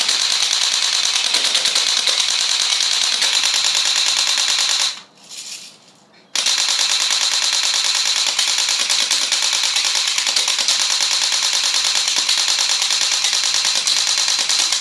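Well D93 Uzi electric airsoft gun (AEG) firing on full auto: its motor and gearbox cycle at a fast rate of fire. There are two long bursts, the first about five seconds long, then a pause of a second and a half and a second burst of about eight seconds.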